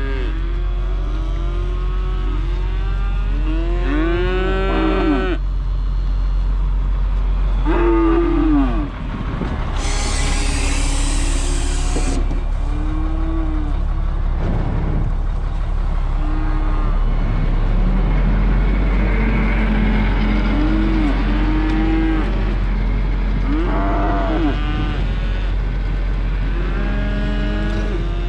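Cattle mooing over and over over the steady drone of a tractor engine, with a burst of hiss lasting about two seconds near ten seconds in.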